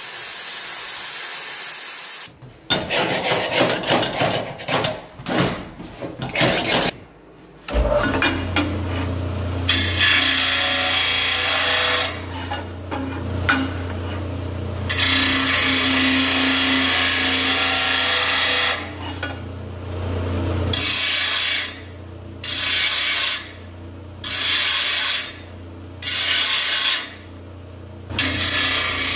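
Cutting torch hissing steadily as it finishes a cut through steel plate, then a few seconds of irregular scraping on metal. About eight seconds in, a bench sander's motor starts with a steady hum. A steel plate's edge is pressed against the abrasive in repeated loud grinding bursts, about eight of them, each lasting one to three seconds.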